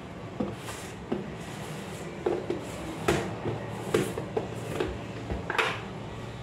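A string of light knocks and clicks from kitchen containers and lids being picked up and set down on a counter, with room hum underneath.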